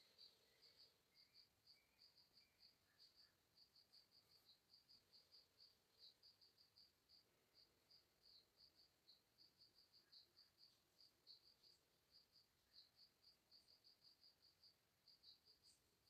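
Faint cricket chirping, a steady train of short high-pitched pulses, several a second, against near silence.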